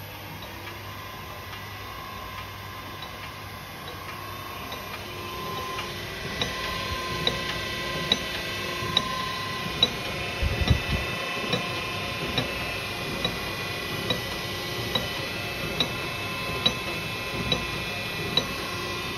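Stainless steel ribbon blender running, its 4 kW electric motor and gearbox drive giving a steady whine. A light tick repeats about every 0.85 seconds, growing louder a few seconds in, with one low thump about halfway.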